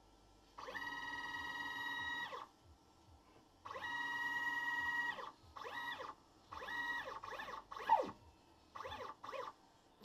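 Stepper motor of a CNC-converted Sieg X2 mini mill driving the table in jog moves: a steady pitched whine in several bursts, two of about two seconds and then shorter ones, each bending up in pitch as it starts and down as it stops. A brief sharp sound with a quick falling tone comes about eight seconds in.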